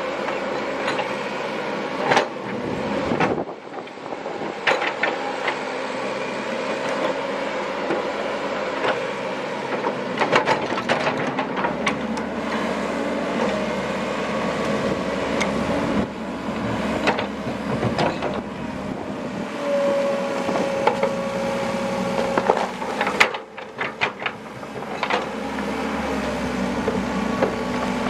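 Komatsu PC130 hydraulic excavator at work, its diesel engine running steadily under load while the bucket and rocks give repeated clanks and knocks. About twenty seconds in, a steady higher tone sounds for a couple of seconds.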